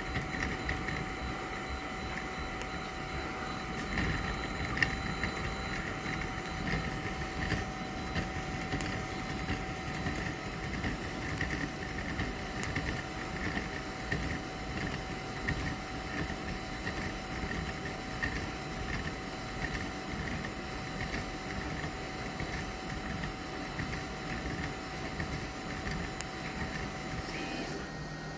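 A small shop machine running steadily: a constant whine with a faster flickering higher tone over a steady noise.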